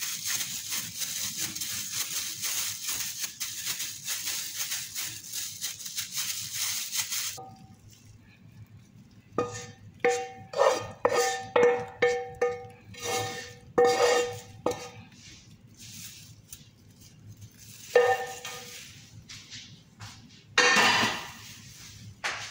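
For about seven seconds, plastic food-prep gloves crinkle and rustle as the hands work potato dough. Then a utensil knocks against a frying pan a dozen or so times in quick succession, each clink ringing, as chicken is emptied out of it. A couple more single clinks follow later.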